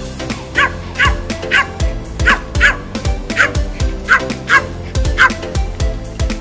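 A small fluffy spitz-type dog yaps repeatedly: about nine short, high yaps, roughly two a second. Background music with a steady beat plays underneath.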